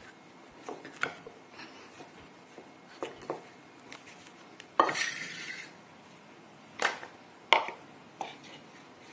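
Hands kneading a small ball of dough in a metal bowl on a wooden table, giving scattered soft knocks and taps of the bowl. About five seconds in comes a brief scraping rustle, and two sharper knocks follow near the end.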